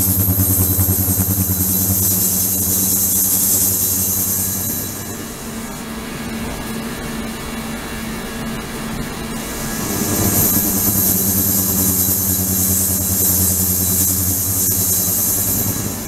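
Ultrasonic water tank running: a steady low hum with a loud high hiss of cavitation that stops about five seconds in and returns about ten seconds in, as the ultrasonic output is switched or varied.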